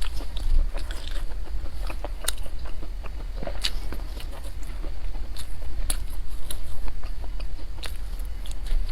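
Close-up mouth sounds of chewing a dense nut-filled bread loaf (da lieba), with irregular crisp crunches and clicks as walnuts are bitten, over a steady low hum.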